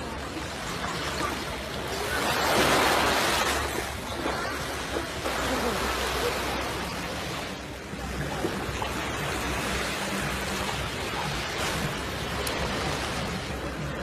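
Surf washing on a sandy beach: a steady hiss of water that swells every few seconds, loudest about two to four seconds in.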